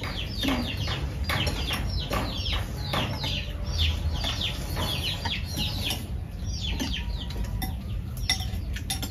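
Chickens clucking, with many short, high, falling chirps, and now and then a light clink of chopsticks or bowls.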